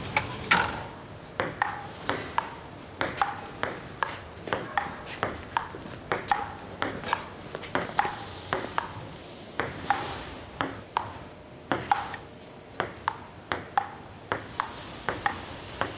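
Table tennis rally: the celluloid ball clicking back and forth off the paddles and the table, about two hits a second.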